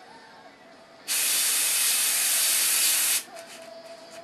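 Airbrush spraying paint: one hiss of compressed air lasting about two seconds, starting about a second in and cutting off sharply.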